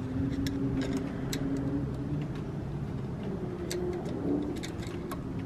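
Steady low hum of an engine running in the background, drifting slightly in pitch about four seconds in, with a few faint light clicks over it.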